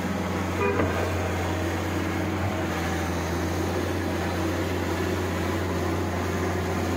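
Diesel engine of a John Deere 595D wheeled excavator running steadily under load, a constant low drone, with a brief higher-pitched sound under a second in.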